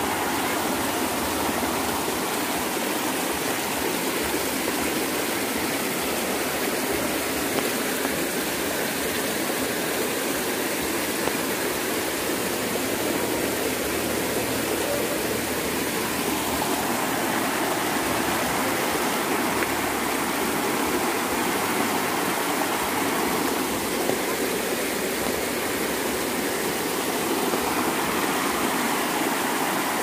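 Steady rush of flowing stream water, an even noise with no breaks.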